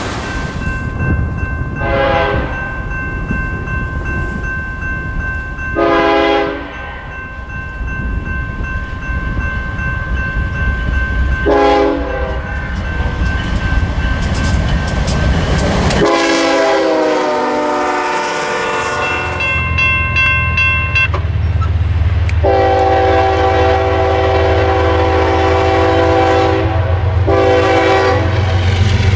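Nathan K5HL five-chime locomotive air horn sounding three short blasts over the low rumble of a passing train. Then a blast whose pitch falls as the locomotive goes by, and later one long blast followed by short ones near the end.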